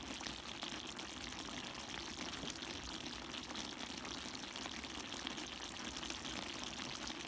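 Chicken and pork adobo in coconut milk simmering in a wide pan: a steady, soft bubbling with a fine crackle of sizzling fat.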